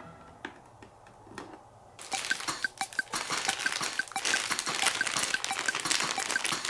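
A few light plastic clicks as a small plastic toy figure is set in place. Then, from about two seconds in, a clear plastic bag of small toy pieces crinkles steadily as it is handled.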